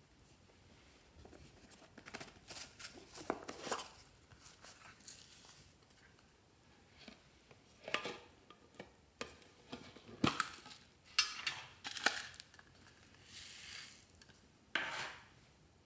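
Small containers and slime add-ins being handled over a glass baking dish: scattered taps and clicks, with short rustling pours as foam beads and sprinkles go into the dish.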